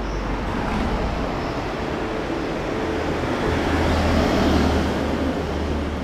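Road traffic noise: a vehicle passing on the street, a low engine rumble and tyre noise that swell to a peak about four seconds in and then fade.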